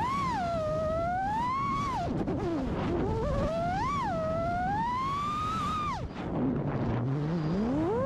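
FPV freestyle quadcopter's brushless motors whining, the pitch sweeping up and down with throttle. About six seconds in, the whine drops steeply, as when the throttle is chopped, then climbs again near the end.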